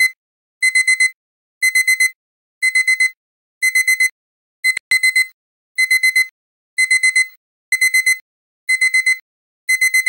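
Digital alarm clock beeping: quick bursts of four high-pitched beeps, repeating about once a second. About halfway through, one burst is cut short with a click.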